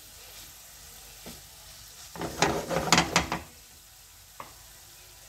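Wooden spoon stirring and scraping thick chicken liver masala around a frying pan, with a run of quick scraping strokes about two seconds in that lasts about a second, over a faint sizzle.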